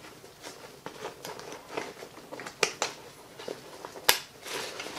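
Handling noises of an ice axe being lashed onto a nylon backpack: soft strap and fabric rustling with scattered light clicks and taps, and one sharper click about four seconds in.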